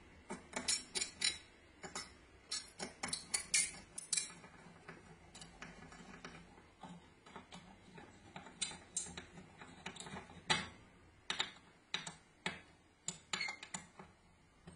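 Irregular small metallic clicks and taps as a small screwdriver turns a small screw into aluminium parts, the light metal pieces knocking against each other now and then.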